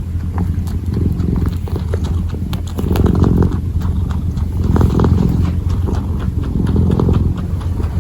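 Kitten purring close to the microphone: a steady low rumble that swells about every two seconds with its breaths, with light scattered clicks from its paws kneading.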